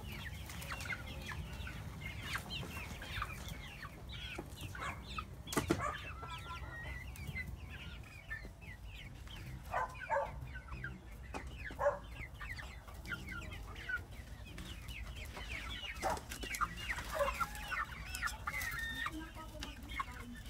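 A flock of young hens near laying age clucking and trilling, with many short calls overlapping throughout. A single sharp knock sounds about six seconds in.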